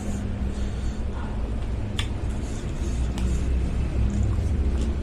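A low steady rumble with faint background music, and a few sharp clicks of a spoon against a bowl during eating: the clearest about two seconds in, two more later on.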